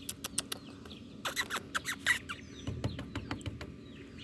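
Ducklings peeping softly with short falling chirps, over a series of sharp clicks and taps that come in quick clusters, the loudest about a second and a half in.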